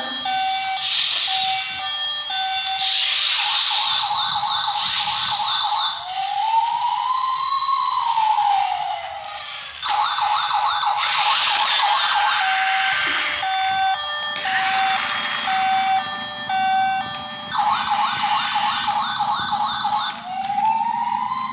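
Battery-powered toy police car playing its electronic siren sound effects: runs of short alternating high and low beeps, fast warbling trills, and a slow rising-and-falling whoop, the sequence starting over about 14 seconds in.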